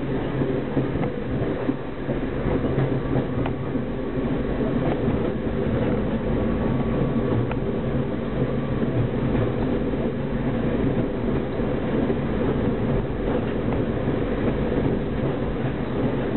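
Diesel multiple unit on the move, heard from inside its rear cab: a steady diesel engine drone under the rumble of the wheels on the rails, with occasional faint clicks.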